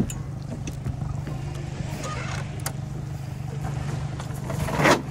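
Boat's anchor windlass hauling in the anchor chain: a steady low hum with a few faint clicks, then a louder rattling burst near the end. The chain piles up in the windlass and jams.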